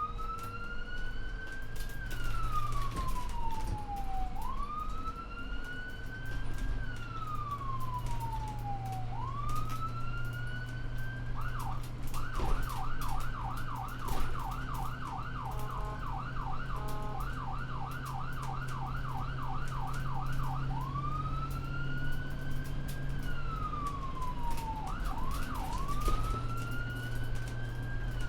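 Emergency vehicle siren: a slow wail rising and falling over several seconds at a time, switching about halfway through to a fast yelp of roughly three sweeps a second for about nine seconds, then back to the slow wail with a couple of quick yelps before it. A steady low rumble runs underneath.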